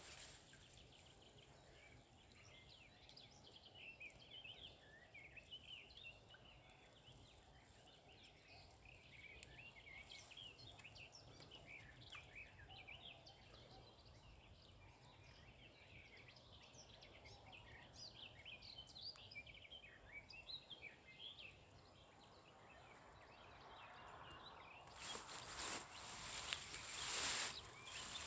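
Faint birdsong, many small birds chirping and twittering over a quiet outdoor background. Near the end it is broken by a run of loud rustling and handling noise.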